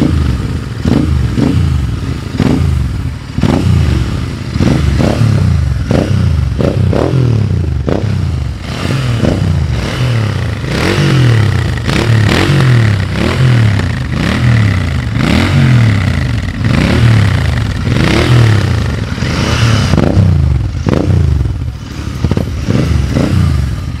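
Royal Enfield Interceptor 650's 648 cc parallel-twin engine being revved in quick throttle blips, the exhaust note rising and falling over and over in close succession.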